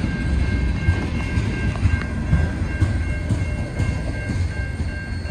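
Freight train tank cars rolling past: a low rumble of steel wheels on rail, with irregular clacks as the wheels cross the rail joints and crossing. A steady ringing from the grade-crossing signal bell runs under it, and the rumble eases as the last car goes by near the end.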